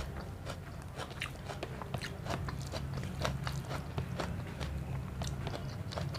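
A person chewing a mouthful of rice and egg curry close to the microphone, with many quick wet mouth clicks and smacks.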